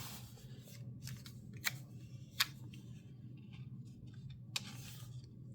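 Crafting handling noise of tweezers and paper on a journal page: three sharp clicks with soft rubbing in between, over a low steady hum.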